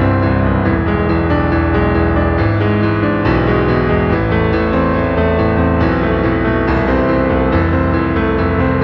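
Background piano music: a slow, sustained piano piece with notes changing every second or so.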